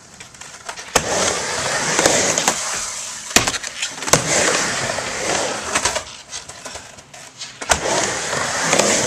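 Skateboard wheels rolling on a wooden mini ramp, broken by several sharp clacks of the board and trucks hitting the ramp. The rolling comes in stretches, quieter for a moment about six to seven and a half seconds in.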